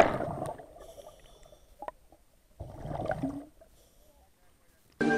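Underwater churning and bubbling just after a scuba diver's entry splash, muffled through the camera's waterproof housing and fading over the first second. A second burst of bubbling comes about two and a half seconds in. Music starts right at the end.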